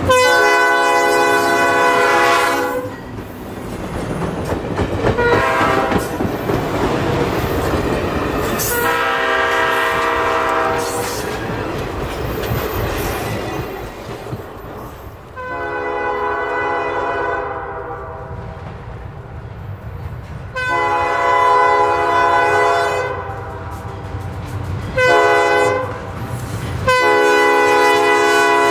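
Diesel locomotive horn on an ex-Seaboard Alco C420 sounding a series of blasts, mostly long. The last four run long, long, short, long: the grade-crossing signal. Between blasts the locomotive's engine rumbles and the wheels click over the rail joints.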